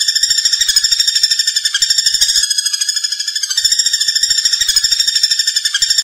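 Common flameback woodpecker (pelatuk bawang) calling with a long, fast, rattling trill of high notes.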